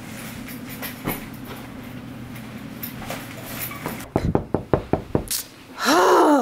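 A run of about six quick, sharp knocks or thumps, followed near the end by a short, loud squeal that rises and then falls in pitch.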